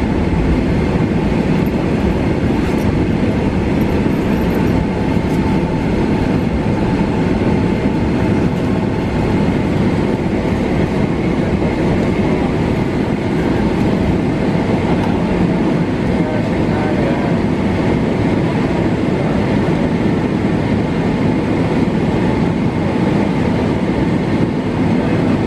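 Steady cabin noise of a jet airliner taxiing: the jet engines running at idle, with a low rumble from the wheels rolling over the taxiway and a few faint steady whining tones.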